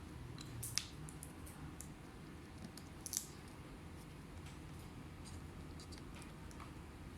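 Small clicks and taps of hands working on an open laptop and its parts, with two sharper clicks about a second in and about three seconds in and faint ticks between.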